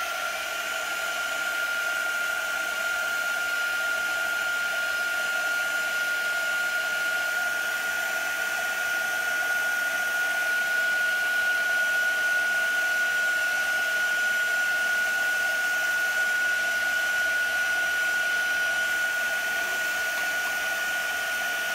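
Handheld craft heat gun running at a steady speed, blowing hot air to dry ink: a steady high whine from its motor over a rush of air.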